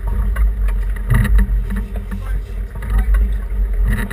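Sportfishing boat at sea: a steady, loud low rumble of the boat underway, with brief crew voices over it.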